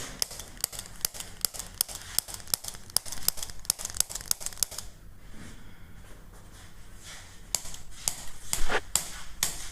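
Rapid, irregular crisp crinkling clicks as the neck is worked, quieting for a couple of seconds, then resuming. A single sharp crack near the end is the chiropractic manipulation of the C1 (atlas) vertebra, correcting its rotation.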